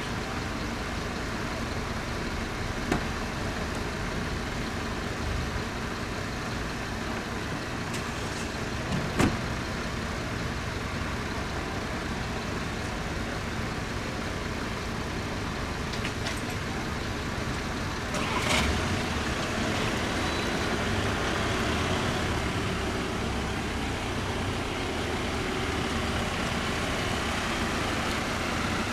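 A motor vehicle running, with a steady engine and road noise. A couple of sharp knocks come about 3 and 9 seconds in, and the noise grows a little louder with a brief rattle about 18 seconds in.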